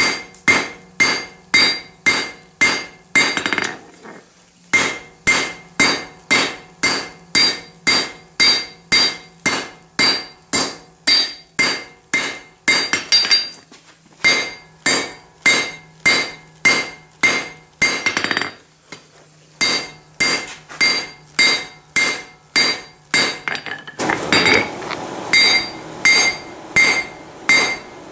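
Cross-peen hammer striking a red-hot railroad spike on a steel anvil: a steady run of blows about three a second, the anvil ringing after each, broken by a few short pauses. The blade is being drawn out and flattened.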